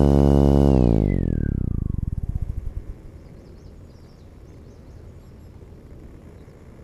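An FPV model aircraft's motor and propeller winding down after landing: a whine that falls steadily in pitch and fades out over about two and a half seconds, leaving only faint outdoor background.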